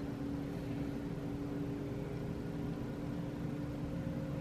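Steady mechanical hum with a few faint steady tones, from a household appliance running.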